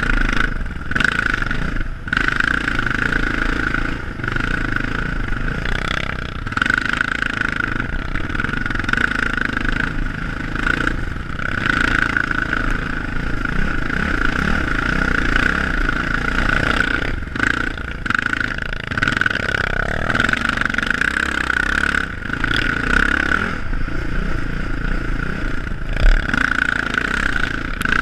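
ATV engine running under throttle over a rough trail, easing off briefly a few times and picking up again.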